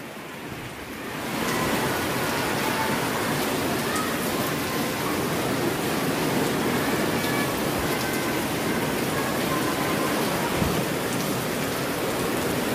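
Heavy rain pouring steadily, with runoff streaming off the roof edges; it swells about a second and a half in and then holds level.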